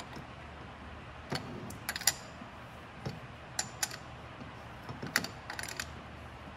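A wrench clicking and clinking against the steel nuts and brackets of a brake booster as the mounting brackets are adjusted and tightened: light, irregular metallic clicks, some in quick little clusters.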